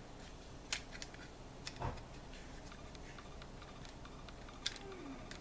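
Faint, sparse clicks and taps of a plastic tailgate handle and its rubber gasket being handled and fitted together, about four light clicks with one duller knock near two seconds in.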